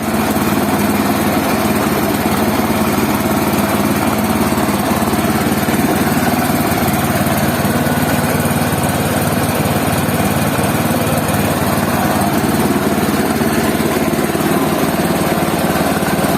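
Restored GLX 160 single-cylinder four-stroke stationary petrol engine running steadily at a constant speed.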